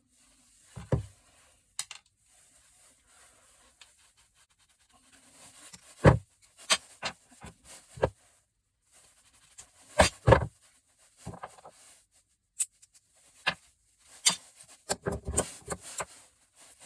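Small metal parts of a gas stove, brass and steel pieces, knocking and clinking as they are handled and put down. The knocks are irregular and scattered, a few close together, with short quiet gaps between them.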